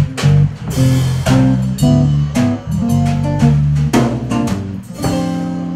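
Guitars playing together: a rhythmic electric bass line under a strummed acoustic guitar, ending on a chord that rings out and slowly fades about five seconds in.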